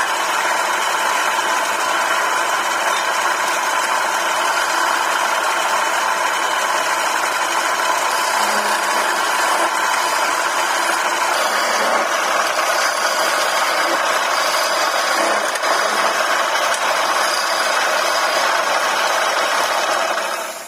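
Wood lathe running steadily while a hand-held turning chisel cuts into the spinning wooden spindle, throwing off shavings.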